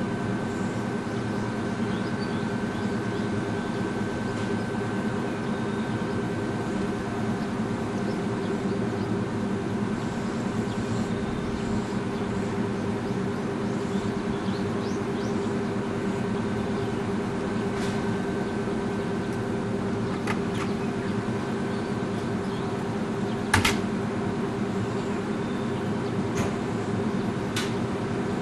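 Stationary Ichibata Electric Railway electric train humming steadily at a platform, its onboard equipment running while it waits. A sharp click comes near the end, with a few faint ticks around it.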